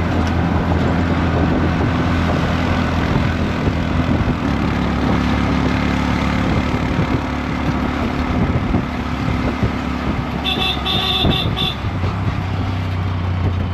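Motorcycle engine of an open-sided passenger tricycle running steadily under way, with road and wind noise in the open cabin. About ten seconds in, a horn gives a short run of toots.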